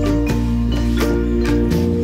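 Background music: held chords over a steady beat of about three strikes a second.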